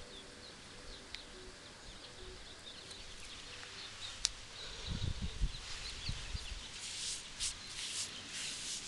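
Small birds chirping faintly in the background. About halfway through, close rustling and scraping noises set in and come in short strokes.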